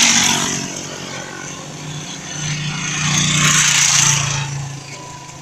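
A motor vehicle passing on the road, an engine hum under road noise: it starts suddenly, swells about three to four seconds in, then fades.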